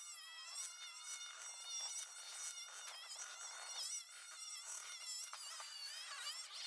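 A thin, high-pitched motor buzz, faint, its pitch wavering up and down throughout.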